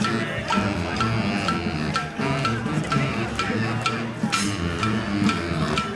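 Street brass band with drums playing, a low bass line stepping under a steady beat of about two strikes a second.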